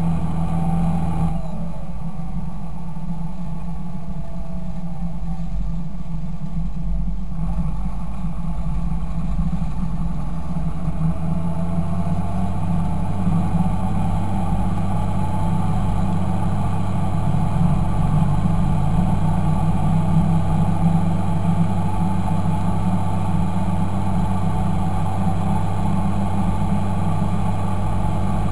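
Fendt 926 Favorite tractor's six-cylinder turbodiesel running steadily. Its higher sound drops away about a second in and returns at around seven seconds, the low engine note grows stronger from about eleven seconds on, and a faint whine glides up and down in pitch above it.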